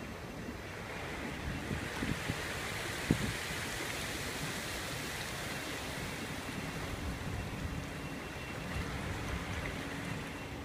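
Steady wash of sea water with wind on the microphone, with one sharp knock about three seconds in and a faint steady hum coming in about halfway through.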